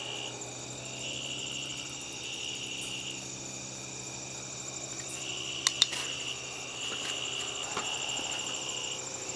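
Crickets trilling in long stretches that stop and start, with two sharp clicks a little past halfway.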